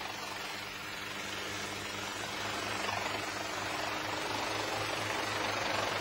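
Small helicopter's engine and rotor running steadily as it settles down to land, the noise growing slightly louder over the few seconds.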